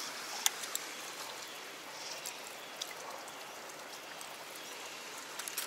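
Steady hiss of running water from a stream flowing over rock, with a few faint clicks.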